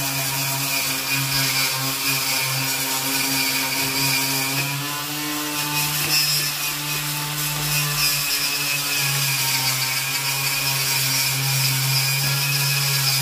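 Power tool with a wire cup brush running steadily against a rusty steel truck bed, scrubbing off the rust: a steady motor hum under a high scratchy hiss.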